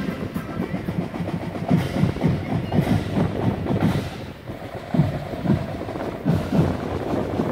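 Marching band drums beating a cadence in an irregular run of low strokes as the band marches in, with no melody playing.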